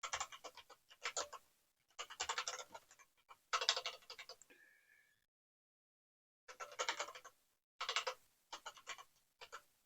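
Computer keyboard being typed on in short clusters of quick keystrokes with pauses between them, as a modem dial command is entered. About halfway there is a brief steady electronic tone.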